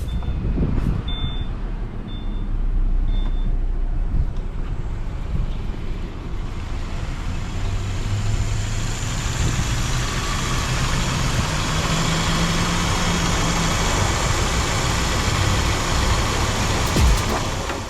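2018 Subaru Forester being driven: engine and road noise that builds from about six seconds in and holds steady. A few short high beeps sound in the first few seconds.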